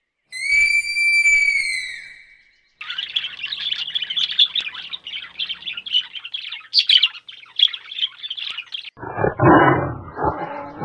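A long whistled call held for about two seconds, then a flock of birds chirping and twittering densely for about six seconds. Near the end this cuts to a loud, low, rough animal call.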